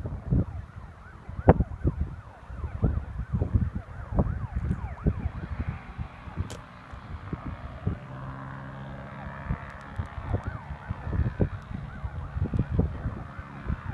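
Strong gusty wind buffeting the microphone in repeated sudden blasts. About eight seconds in, a steady engine drone comes through under the gusts for a couple of seconds.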